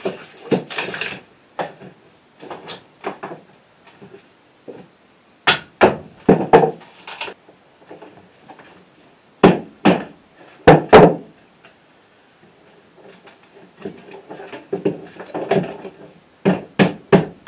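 Irregular knocks, clunks and scraping as hand tools, cables and wooden boards are handled and shifted about on the steel floor of a narrowboat engine bay, with the loudest knocks about a third of the way in and again just past halfway.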